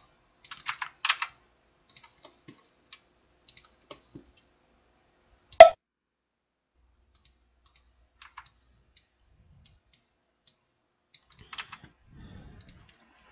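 Scattered clicks and keystrokes from a computer keyboard and mouse, a few at a time with pauses between. One much louder sharp click comes about five and a half seconds in.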